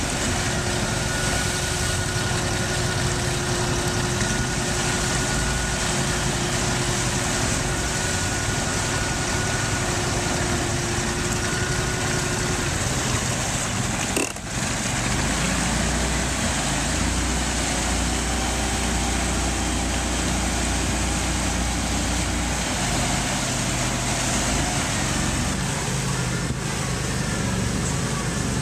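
The engine of an Argo amphibious eight-wheel ATV running steadily as it pushes through deep mud, with a steady whine over the first half. The sound breaks off for a moment about halfway.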